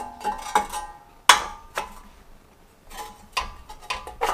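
Recoil starter housing and engine shroud being worked back into place on a small generator engine: a handful of sharp metal clanks and knocks, several ringing briefly, the loudest about a second in.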